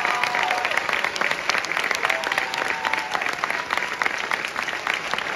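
Audience applauding: dense clapping, with a few cheers rising above it.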